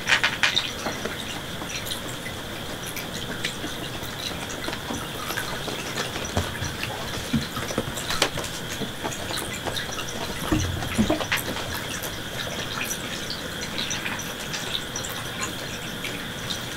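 Steady trickling, running-water sound with scattered small ticks, and a few soft low thumps about ten to eleven seconds in.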